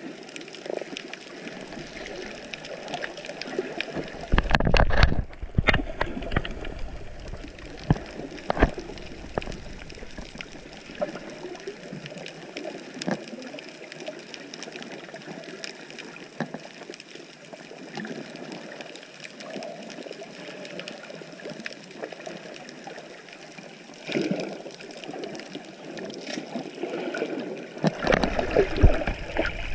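Underwater sound picked up through a GoPro's waterproof housing: a muffled wash of water with scattered clicks and crackles. It swells about five seconds in, and again near the end into a churning of bubbles as snorkelers kick with their fins close by.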